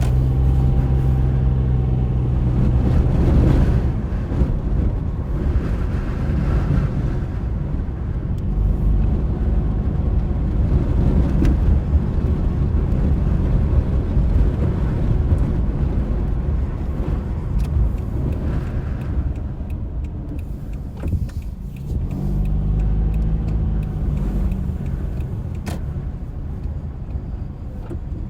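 A car being driven, with steady low road and wind rumble. A steady engine note stands out at the start and again for a few seconds past the twenty-second mark.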